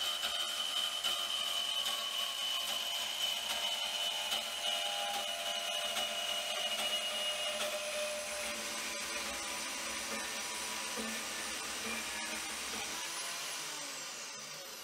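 Vevor portable metal-cutting bandsaw cutting thin-walled mild steel: a steady motor and blade whine with the rasp of the blade in the metal. Its pitch sinks gradually, then starts to fall and the sound eases off near the end. The owner found the cut sounded too fast at speed setting 3 and better once slowed down.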